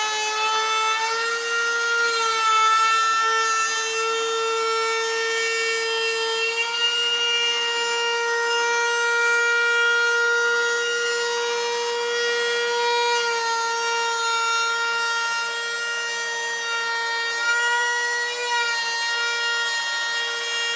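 Router with a binding cutter bit running with a steady high whine, cutting the binding channel into the wooden edge of a guitar body; the pitch shifts slightly now and then as the cut loads it.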